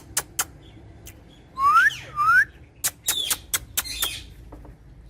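Parrot whistling: two rising whistles in quick succession about a second and a half in, among sharp clicks, followed by a few short calls.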